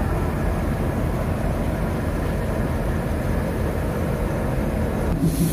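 WDG3A diesel locomotive's ALCO engine idling, a steady low rumble. Near the end a loud hiss starts, with a pulsing throb of about three beats a second.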